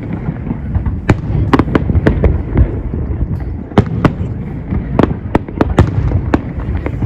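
Fireworks display: a quick, irregular series of sharp bangs and cracks over a continuous low rumble.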